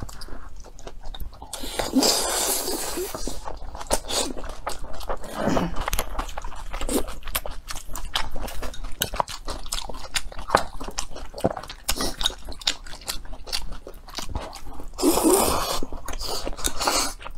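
Close-up eating sounds: a person chewing and crunching food with many small wet mouth clicks. There are two longer slurps, one about two seconds in and one near the end, as food strands are sucked in from chopsticks.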